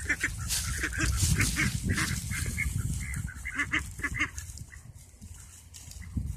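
A flock of domestic ducks quacking in many short, overlapping calls, which die down about four and a half seconds in.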